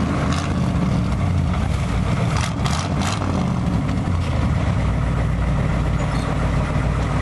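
Truck engine running steadily with a deep low rumble, with a few short knocks about two and a half to three seconds in.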